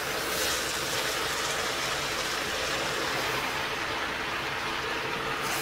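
Steady sizzling of cabbage and mixed vegetables frying in a large pot without water, with a faint steady hum underneath.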